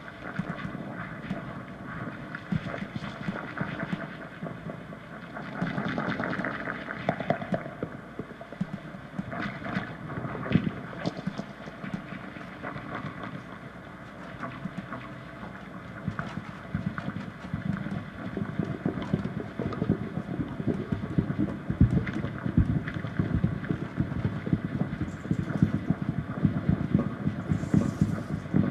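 Free-improvised guitar and drums playing in a noisy, textural style: a dense stream of clicks, scrapes and rustles rather than clear notes or a beat. In the last third the texture thickens with many low drum strikes.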